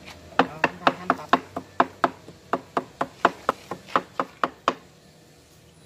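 Meat cleaver chopping raw duck meat on a chopping block: a quick, even run of about four knocks a second, mincing the meat for larb, then stopping.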